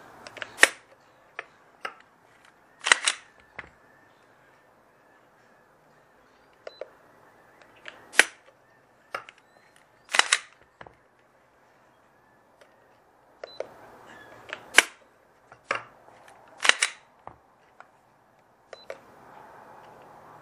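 Glock 19 Gen 3 pistol being dry-fired for trigger-pull measurements: sharp metallic clicks as the trigger breaks and the striker releases, about six loud ones a few seconds apart. Fainter clicks of the gun and trigger gauge being handled and reset fall between them.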